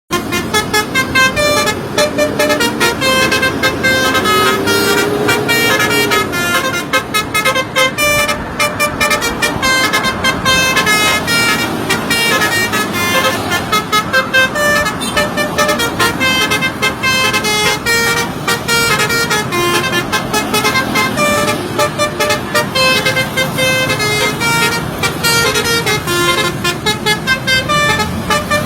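Basuri multi-tone musical bus horn playing a fast tune of short notes in quick succession, over a low engine rumble.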